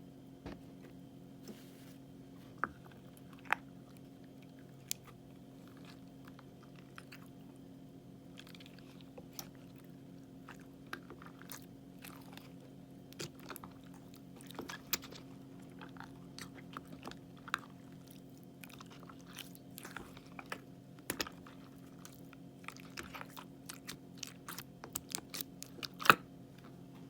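Crunchy 'shaki-shaki' slime being worked by hand, giving sparse crisp crackles and snaps that come thicker in the second half, the loudest snap near the end. A faint steady hum lies underneath.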